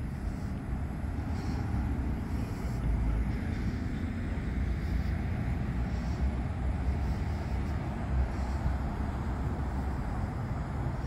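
Wind buffeting a phone microphone outdoors: a low rumble that rises and falls unevenly, over faint street ambience.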